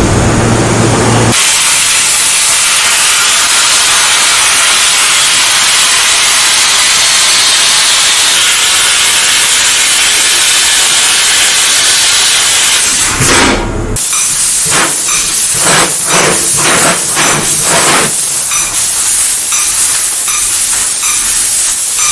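Fibre laser cutting machine's assist gas hissing steadily at the cutting head as it cuts sheet metal. About 13 seconds in the hiss breaks off after a brief sweep and gives way to a run of short hissing bursts, as the head pierces and cuts in short moves.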